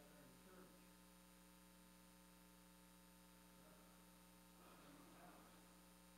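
Near silence: a steady electrical mains hum, with a faint voice far from the microphone about five seconds in.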